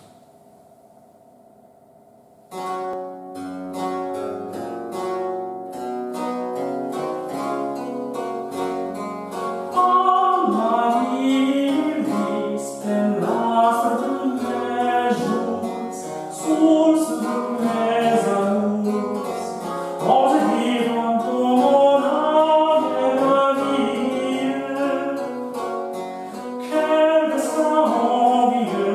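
Harpsichord played with its lute stop, giving a plucked, lute-like sound, starts the introduction of a 17th-century French air de cour about two and a half seconds in. A tenor joins about ten seconds in, singing in old French over the harpsichord.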